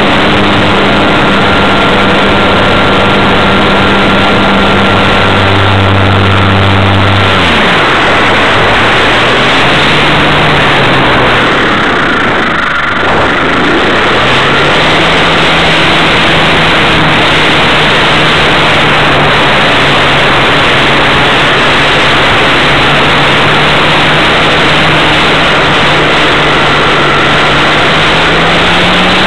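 Wilga plane's engine and propeller running in flight, heard as a loud steady drone. Its note drops sharply about seven seconds in, wavers and dips briefly near the middle, then holds steady and rises a little near the end.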